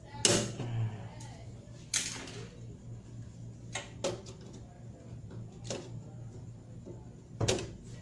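Scattered sharp clicks and knocks, about six in eight seconds, as components are handled and fitted into a motor control panel, over a steady low hum.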